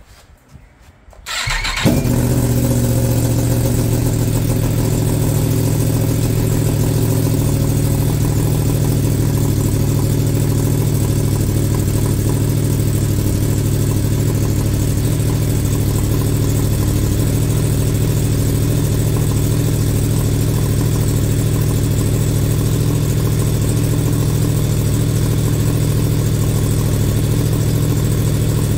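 2022 Yamaha MT-10's crossplane inline-four starting from cold about a second and a half in, then running at a steady idle. It breathes through an aftermarket link pipe that deletes the catalytic converter, into the stock muffler.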